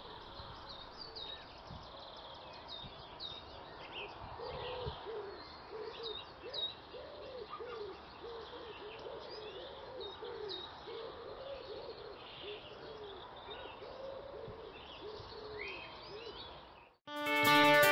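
Spring birdsong: pigeons cooing over and over, low and soft, with small songbirds chirping high above. The birdsong cuts off about a second before the end and guitar music starts.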